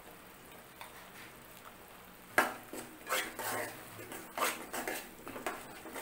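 Steel spoon scraping and clinking against a metal pan while stirring spice powders into a thick fried onion paste. The strokes start about two and a half seconds in and come in an uneven run, several a second.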